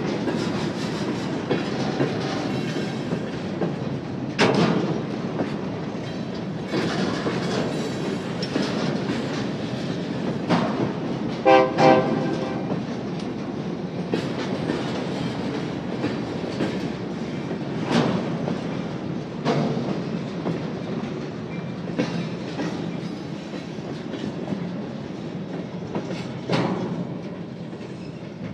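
Freight train moving slowly during switching: a steady rumble of rolling wheels with several sharp clanks from the cars and couplers, and a short horn blast about halfway through.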